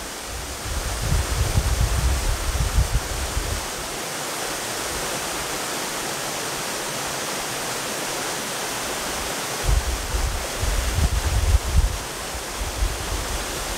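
Waterfall pouring down a rock face onto boulders: a steady rushing hiss. Low gusts of wind buffet the microphone for the first few seconds and again from about ten seconds in.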